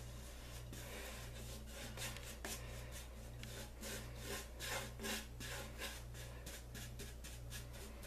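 Paintbrush bristles rubbing oil paint across a wooden beehive box in repeated quick strokes, a few a second and busiest in the middle. A low hum that pulses on and off runs underneath.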